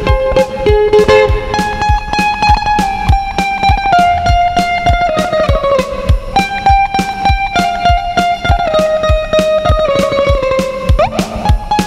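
Greek bouzouki playing a melody with plucked notes and sliding pitch glides, over a steady beat.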